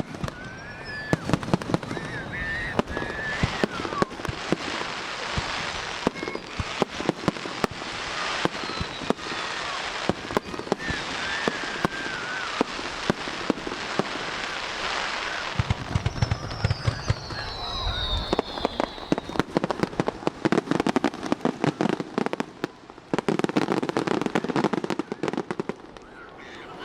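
Aerial fireworks shells bursting, with dense crackling throughout. Heavier deep booms come about sixteen seconds in and again near the end.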